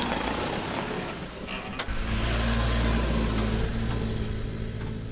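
Pickup truck's engine running with a steady low hum as the truck pulls away, with one sharp click just before two seconds in.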